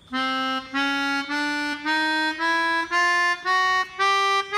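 Melodica playing an ascending chromatic scale, one half step at a time, starting around middle C. The notes are short and separate, about two a second, eight of them climbing steadily.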